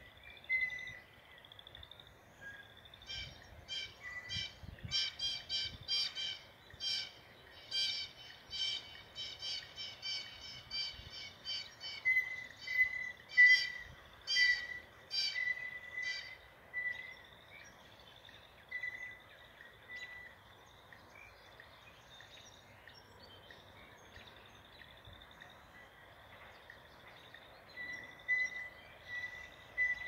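Several small birds chirping: runs of sharp, quick chirps, about two to three a second, loudest in the first half, over thinner repeated high calls.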